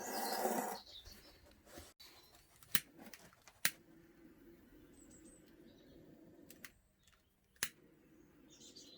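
A burst of rustling, then a few sharp knocks spread over several seconds, with faint bird chirps in the background: the sounds of a wood cooking fire being laid and lit.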